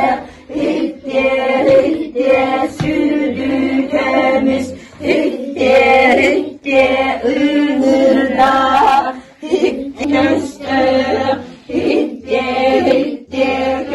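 A group of children and women singing a Yakut (Sakha) folk song together, in short repeated phrases with brief breaks between them.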